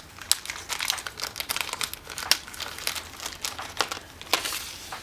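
Small plastic parts baggie crinkling and rustling in the hands, with irregular crackles throughout.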